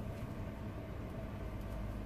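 Steady low machine hum with a faint constant whine, level throughout.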